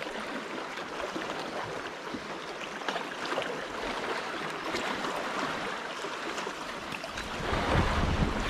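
Sea water lapping and splashing: a steady hiss with small scattered splashy clicks. A low rumble joins near the end.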